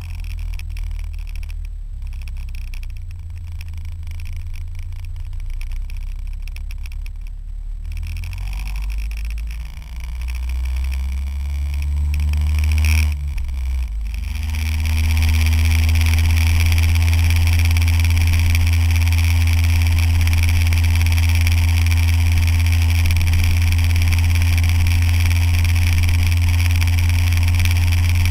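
Motorcycle engine idling, then pulling away with its pitch rising about ten to thirteen seconds in. From about fourteen seconds it runs steadily at cruising speed, with heavy wind noise over the microphone.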